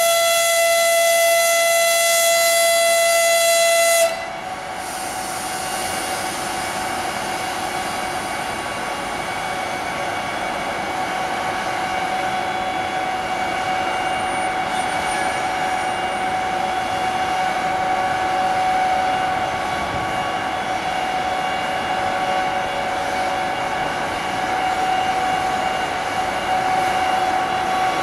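A ChS4t electric locomotive sounding a steady, high-pitched horn blast that cuts off sharply about four seconds in. Then the locomotive pulls away with its passenger train toward the listener: a steady electric whine and wheel noise, growing slowly louder.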